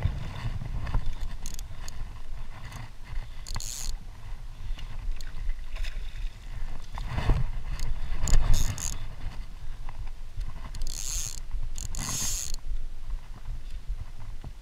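Fly line being stripped in by hand while playing a hooked fish, with short hissing swishes of line, the clearest about four seconds in and twice near 11 and 12 seconds. A steady low rumble of handling noise runs underneath.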